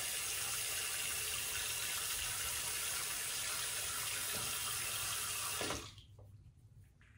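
Bathroom sink tap running in a steady rush, shut off abruptly about six seconds in.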